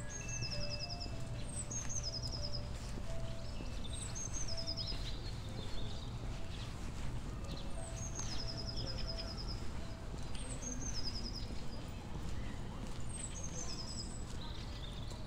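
A songbird singing the same short phrase over and over, about every two seconds: a high note dropping into a quick run of repeated notes. Under it runs a steady low rumble of outdoor background noise.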